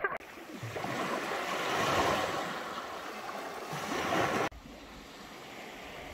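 Small waves breaking and washing against shore rocks, swelling and ebbing. About four and a half seconds in it cuts off abruptly to a quieter, steady hiss.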